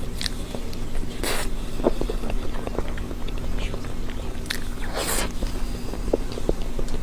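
Close-miked eating sounds: chewing a chocolate dessert, with many small wet mouth clicks and two short noisy sounds, about a second in and near five seconds.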